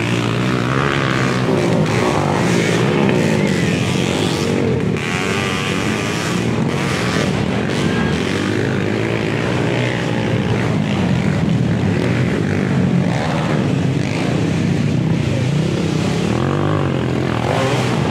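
Flat-track racing motorcycle engines revving hard without a break, the pitch swinging up and down.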